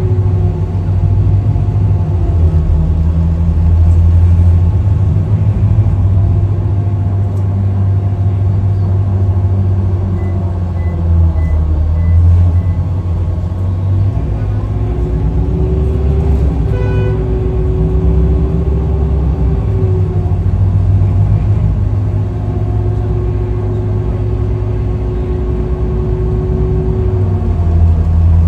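Car engine and road noise during a drive: a steady low hum with engine tones that drift slowly up and down. A short beep sounds about two-thirds of the way through.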